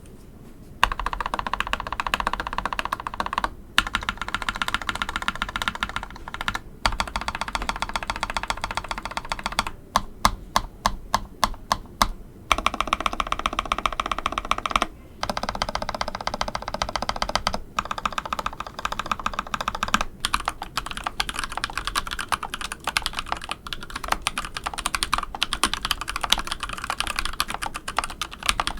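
Fast typing on a mechanical keyboard with modded linear switches: Keyfirst Cream housings fitted with long-pole Burgundy Pro stems, in a hot-swap board with an aluminum plate. The keys give a sharp, clacky bottom-out. The typing comes in quick runs with a few short pauses and some single separate keystrokes.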